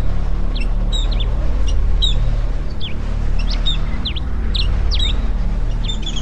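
Songbirds chirping in quick, short sweeping notes, busiest near the end, over background music with low held tones.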